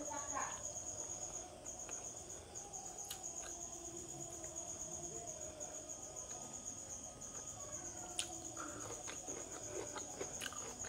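Crickets trilling steadily in the background, one high continuous note, under the soft sounds of a person eating with her hands: chewing and a few light clicks.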